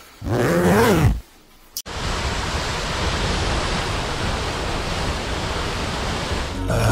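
Steady rushing of a waterfall, an even wash of water noise that starts abruptly about two seconds in and runs for about five seconds. Before it comes a brief sound sliding up and down in pitch.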